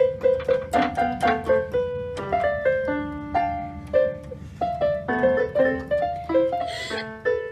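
Background music: a quick melody of short, separate notes.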